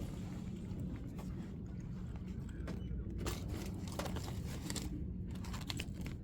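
Rustling and light clicks from handbags and wallets being handled and put back on a shelf, over a steady low hum.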